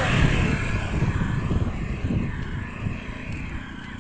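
Wind gusting against the microphone: an uneven low rumbling buffet, with a higher rushing hiss that eases off after about two seconds.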